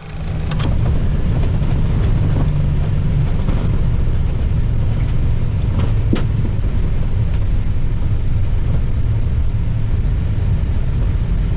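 Steady, loud low rumble in an Airbus A320neo cockpit during the landing rollout: engine noise and the wheels on the runway as the aircraft decelerates under autobrake. There is a single click about six seconds in.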